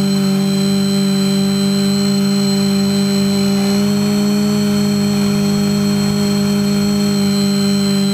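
Quadcopter's four brushless motors and propellers whirring steadily, heard through the onboard GoPro camera. The pitch steps up slightly about four seconds in as the quad climbs.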